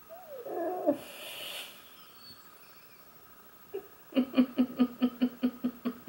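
A person laughing in a quick string of about ten short, even "ha" pulses, about five a second, starting some four seconds in; a brief voiced sound and a breathy exhale come near the start.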